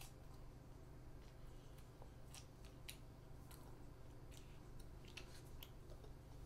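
A child biting and chewing a Korean fish-shaped wafer ice cream sandwich: faint, scattered crisp crackles of the wafer, heard several times over a low steady hum.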